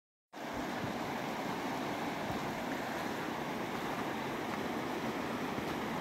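Shallow mountain river rushing over rocks, a steady wash of water noise that begins just after the start.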